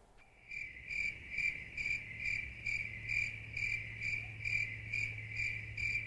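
A cricket chirping steadily, about two short high chirps a second, starting about half a second in, over a steady low hum.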